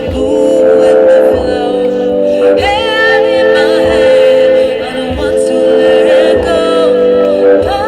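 Live band music: a sung melody over bass guitar and held accompaniment, with a regular low beat.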